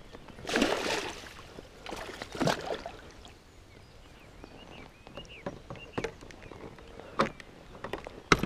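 Water splashing in short bursts as a hooked pike is fought at the surface and guided toward a landing net, followed by a few sharp clicks near the end.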